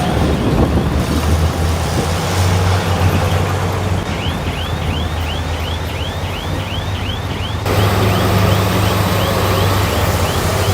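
A bulldozer's diesel engine running steadily under load, with a run of short, high squeaks from the crawler tracks, about three a second, starting about four seconds in.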